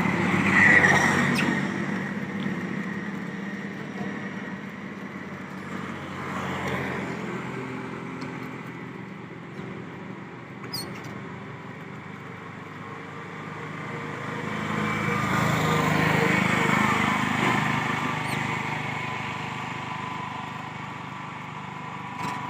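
Motor vehicles passing, a steady engine-and-tyre noise that swells and fades, loudest right at the start and again about two-thirds of the way through, with a few faint clicks.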